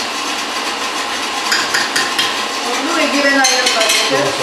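A spoon clinking and scraping against a bowl and plate while food is stirred and dished up, with a few sharp clicks about one and a half seconds in and again near the end, over a steady hiss.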